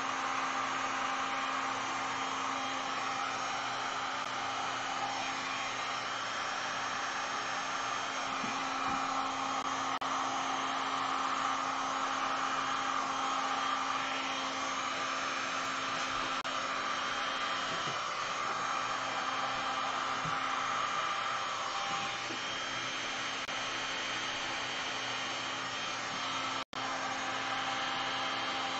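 Electric heat gun running steadily, its fan blowing hot air across wet epoxy resin with a steady motor hum underneath. The sound drops out for a split second near the end.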